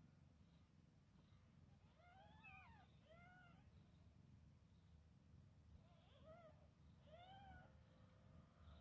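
Newborn Maine Coon x Elf Sphynx kitten giving four faint, high mews, each rising and falling in pitch, in two pairs about two and six seconds in.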